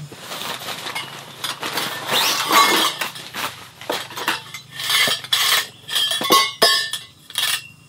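Black folding metal table frame being unpacked and opened out by hand, its metal poles and hinges clinking and rattling against each other in irregular clusters.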